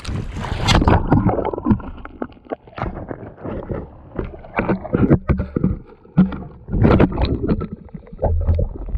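A person slipping and falling on mud, then a helmet-mounted waterproof camera knocking and splashing about in shallow water, with water gurgling against the microphone. A rapid string of irregular knocks and splashes begins suddenly at the start.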